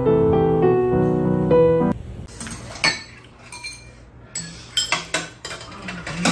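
Piano music that stops about two seconds in, followed by spoons and chopsticks clinking against ceramic bowls as two people eat, several short clinks.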